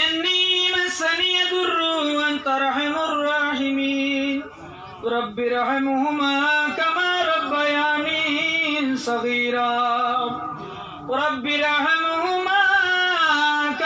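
A man chanting a devotional melody into a microphone, holding long wavering notes. He breaks briefly for breath about four and a half seconds in and again near eleven seconds.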